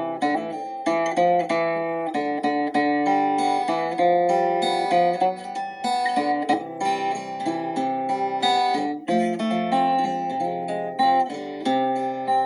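Instrumental music of plucked acoustic guitar, single notes picked one after another and left to ring, at a calm pace.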